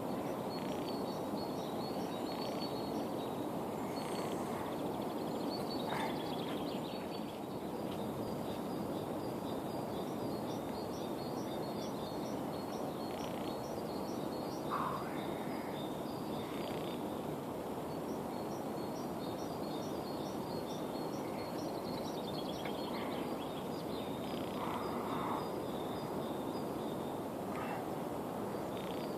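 Outdoor ambience: small birds chirping over and over above a steady background rumble, with a few louder, lower bird calls about halfway through and near the end.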